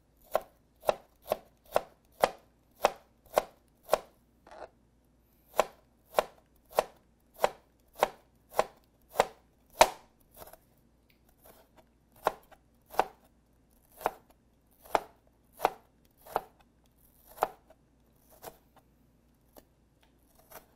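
Knife slicing galangal root into thin matchstick strips on a plastic cutting board: sharp, regular chops about two a second, with a couple of short pauses and sparser strokes near the end.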